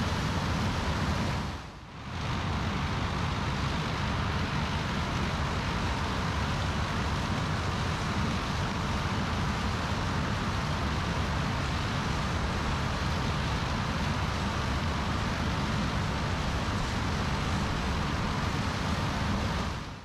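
Harvesting machinery (combine harvester and tracked tractor with grain cart) running steadily in the field, an even mechanical rush with a brief dip about two seconds in.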